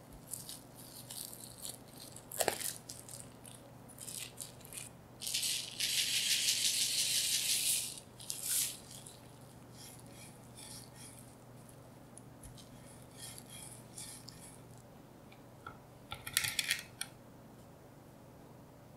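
Cling film crinkling and crackling as it is peeled off a chilled log of cookie dough, then granulated sugar poured onto plastic wrap as a steady hiss for about two and a half seconds, followed by light crackles and rustles of the wrap as the dough is rolled in the sugar.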